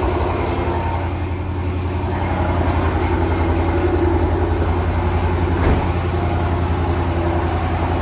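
A 2013 Dodge Challenger's 6.4-litre 392 HEMI V8 idling steadily with a single-cylinder misfire, which the scan tool puts on cylinder three. A brief knock sounds a little past the middle.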